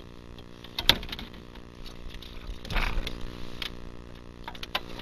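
A small motor running steadily, with a sharp knock about a second in and a brief rush of noise near three seconds.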